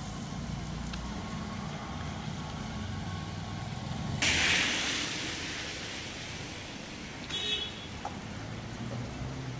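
Road traffic, with vehicle engines running steadily. About four seconds in comes a sudden loud hiss that fades over a couple of seconds, and near the end there is a brief high-pitched beep.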